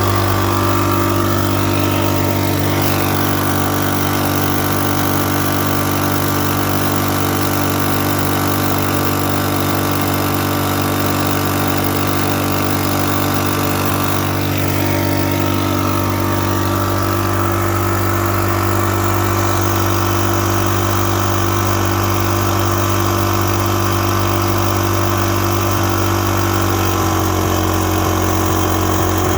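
Microlite 2800 portable generator's small engine running at a steady speed, with a slight change in its note near the end.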